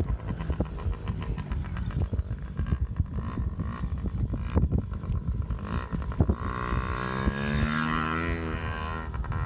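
Dirt bike engine heard from a distance, its revs rising and then dropping between about seven and nine seconds in, over an uneven low rumble of wind on the microphone.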